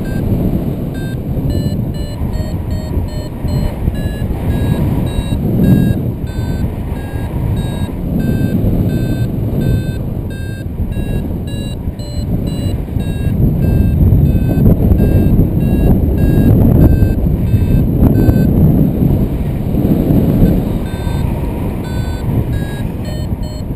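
Paragliding variometer beeping in short repeated tones, a few a second, shifting slightly in pitch: the climb tone while the wing circles in a thermal. Loud wind rushes over the microphone underneath, surging louder and softer.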